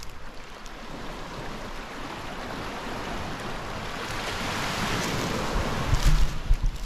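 Small waves washing onto a sand beach: a soft rushing that swells to a peak about five seconds in and then eases. A few low thumps come near the end.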